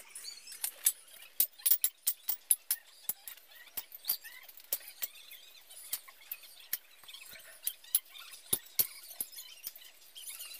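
Woven plastic sack being handled on the floor, crinkling with many irregular sharp crackles and some faint squeaky notes.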